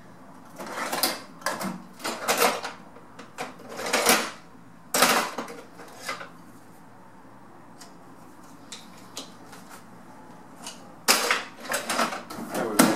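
Metal tool chest drawers sliding and loose hand tools clinking and rattling as someone rummages through them, in short clatters with a quieter stretch in the middle and another cluster of clatters near the end.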